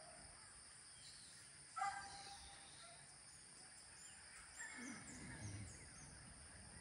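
Faint chicken call, one short call about two seconds in, over a quiet rural background with faint high bird chirps.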